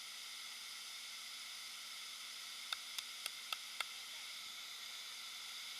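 Steady even hiss, with five short sharp knocks in quick succession about halfway through.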